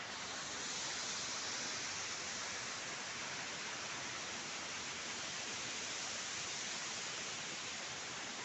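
Steady, unbroken hiss of rushing, falling water, heaviest in the high range.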